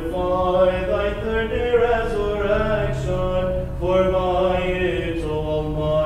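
A male voice chanting an Orthodox Vespers hymn in long held notes that step from pitch to pitch, with brief breaks between phrases.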